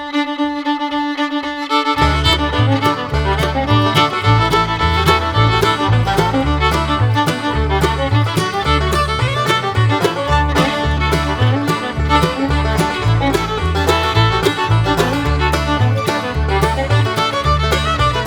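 Background music: held notes at first, then a bass line and a steady beat come in about two seconds in.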